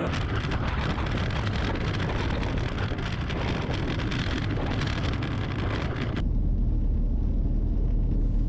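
Snowmobile engine and propeller of an Avid MKIV light aircraft running as it rolls along a dirt strip, the engine overheated after losing its coolant. About six seconds in the sound drops abruptly to a steady low rumble.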